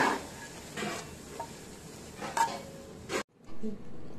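A steel spoon scraping and stirring in a bowl as fried potato pieces are folded into frothy beaten egg: a few soft, wet scrapes and clinks spread across a few seconds.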